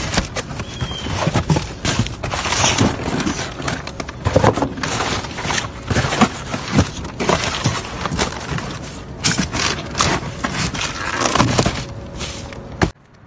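Cardboard boxes and plastic bags being shifted and rummaged through by hand, a busy run of crinkling, rustling, scraping and knocking that stops suddenly near the end.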